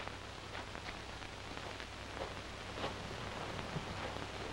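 Steady hiss and faint crackle of an old film soundtrack over a low steady hum, with a few faint clicks.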